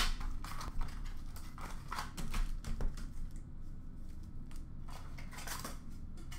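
Cardboard card boxes and packs being handled and set down on a glass counter: scattered light taps and clicks, with a stretch of rustling about five seconds in.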